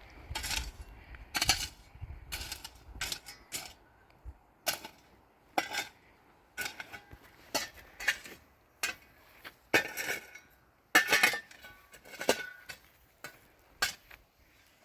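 A series of sharp clinks and knocks of hard objects striking one another, irregular, roughly one a second, some with a short ring.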